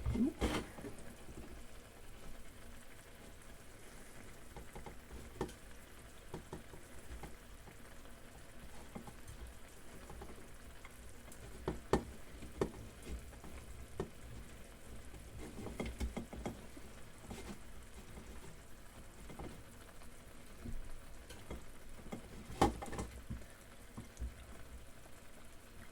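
Block of mature cheddar being grated by hand on a cheese grater, irregular scraping strokes with occasional sharper knocks, while the omelette pan bubbles faintly underneath.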